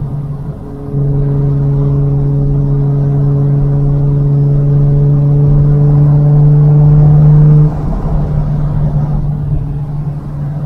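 Nissan Skyline R33 GT-R's RB26 twin-turbo straight-six on the move through a Tomei titanium exhaust. A steady drone jumps about a second in to a louder engine note that rises slowly for several seconds, then cuts off suddenly and drops back to the lower drone.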